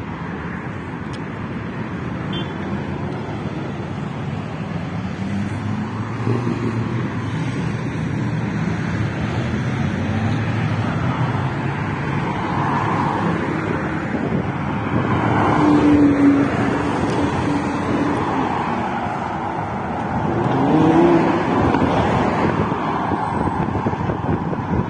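City road traffic: a steady wash of cars, with vehicles passing close and swelling louder about two-thirds of the way in and again near the end.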